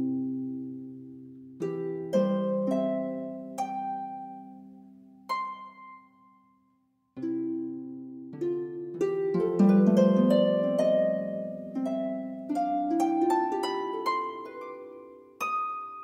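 Background music of plucked string notes, each ringing out and fading. It breaks off briefly about six seconds in, then picks up with a quicker run of overlapping notes.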